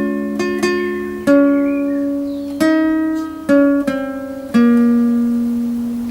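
Guitar played slowly: a picked tune of single plucked notes or chords, one about every second, each left to ring out, the last one sustaining for over a second.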